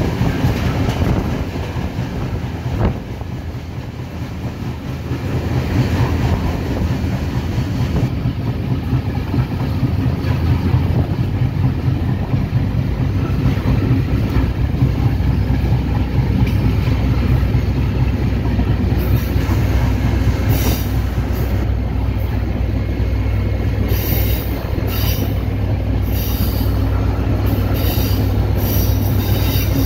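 Passenger train led by an EMD GT26CW diesel locomotive, heard from aboard as it pulls away: a steady low rumble and drone of the rolling train, growing louder over the first ten seconds as it picks up speed. In the second half come a series of short, sharp high-pitched bursts from the wheels on the rails.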